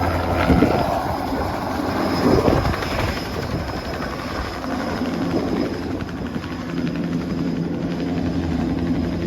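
Bell OH-58 helicopter's single turbine and rotor running as it departs, with louder swells of rotor noise about half a second and two seconds in. From about five seconds in, a steady engine hum stands out under the rotor noise.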